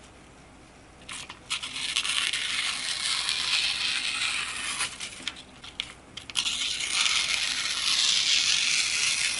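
A CPM S60V knife blade shaving an elk antler tip: two long stretches of hissy scraping, with a few sharp clicks before and between them.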